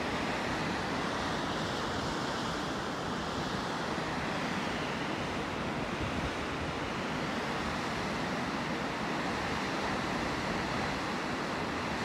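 Steady rush of a waterfall and the fast, rocky stream below it, with a low rumble of wind on the microphone.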